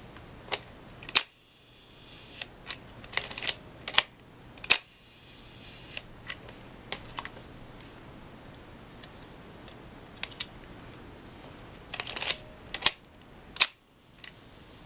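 Nikkorex Zoom 35 single-lens reflex camera being worked by hand: a series of mechanical clicks, with three loud sharp shutter-release clicks about a second in, about five seconds in and near the end, each after a short run of smaller clicks. It is being fired to check that it works after repair.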